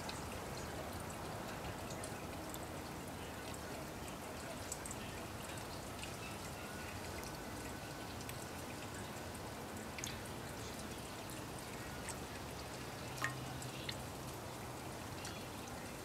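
Sparrow bathing in a shallow ceramic birdbath: light splashing and dripping of water over a steady hiss, with scattered small ticks and one sharper tick late on.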